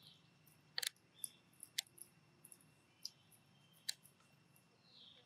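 A pig-tailed macaque eating peanuts close to the microphone: several sharp, irregular clicks and cracks from its mouth as it bites and chews, the loudest about a second in.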